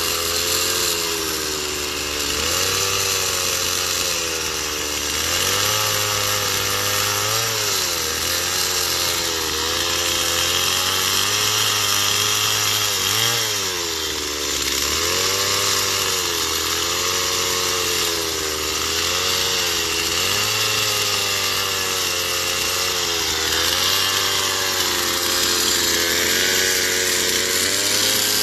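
Stihl two-stroke chainsaw running throughout while the chain smooths and shapes wood, its engine pitch rising and dipping again and again as the throttle is worked and the chain bites.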